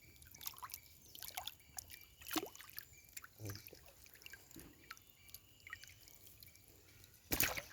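Water dripping and trickling in small, irregular splashes, with one louder sudden sound near the end.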